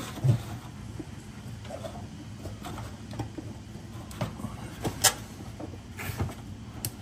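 Polyurethane exhaust hanger being pushed and twisted by hand onto a steel hanger rod, lubricated with silicone spray: faint rubbing and creaking with scattered small clicks and knocks, the sharpest about five seconds in.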